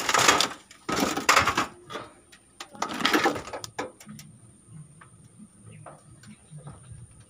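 Three loud bursts of rustling and scraping in the first few seconds, as leaves brush against the phone's microphone, then quieter light clicks and rustles over a faint steady high-pitched tone.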